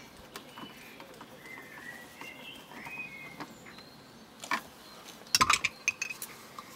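Hard clicks and knocks from the plastic dashboard air vent being handled and pressed back into the fascia: a click near the start, another about four and a half seconds in, then a quick run of sharper clicks between five and six seconds in, the loudest. Birds chirp faintly in the first half.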